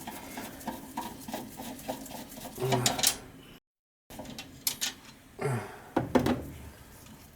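Light clicks, taps and rattles of hand tools and small metal parts as a gas furnace's burner assembly is worked on to remove the flame sensor, with a brief cut to total silence about three and a half seconds in.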